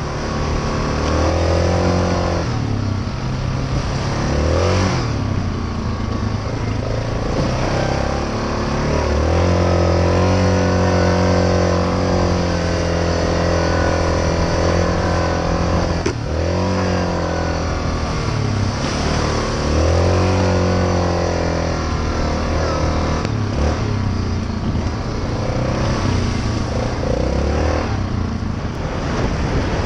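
ATV (quad) engine running under way, its pitch climbing and falling as the throttle opens and closes and holding steady through longer stretches at speed. There is a short knock about sixteen seconds in.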